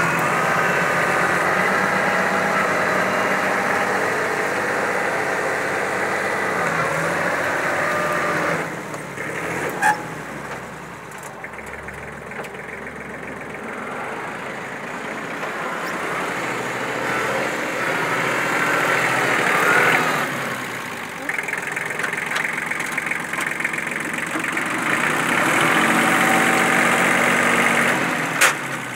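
Kubota B1600 compact tractor's three-cylinder diesel engine running steadily while its rear rotary tiller churns through the soil. The sound drops away for several seconds in the middle and then comes back up, with a single sharp knock about ten seconds in.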